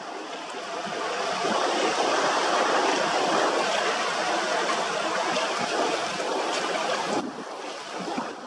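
Steady rushing noise of surf and wind over choppy water. It swells over the first couple of seconds and drops off suddenly about seven seconds in.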